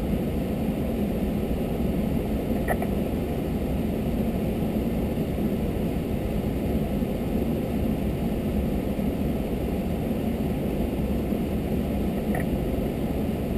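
Vehicle engine idling steadily, a low even rumble, with two faint brief clicks about three seconds in and near the end.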